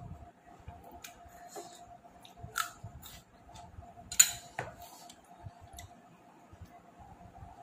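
Eating sounds: scattered small clicks and mouth smacks, with one sharper, louder click about four seconds in, over a faint steady hum.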